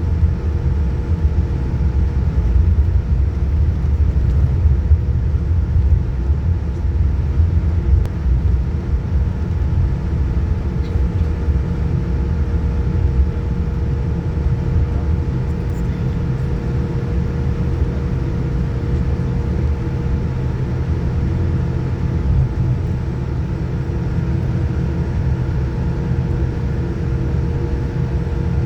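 Boeing 787-9 cabin noise: a steady low rumble with a constant whine on top.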